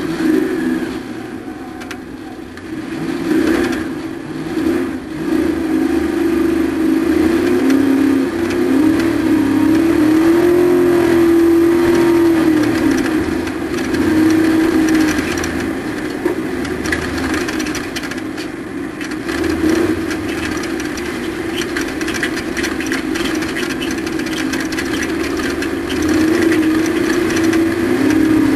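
Race truck's engine at racing speed, its note climbing and falling again and again as the driver accelerates and lifts off.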